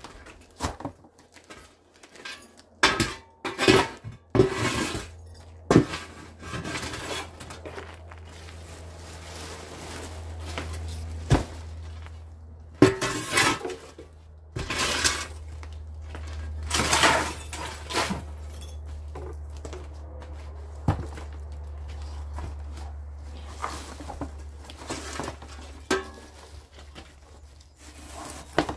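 Junk and burnt debris being handled and tossed aside: repeated clattering and crashing with clinking and breaking among it, over a steady low hum.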